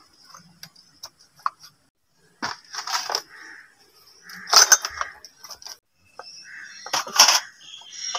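Kitchenware being set down on a mud counter: steel cups and utensils in a tray and metal tins clink and rattle, with a few louder clatters, the loudest about halfway through and again near the end.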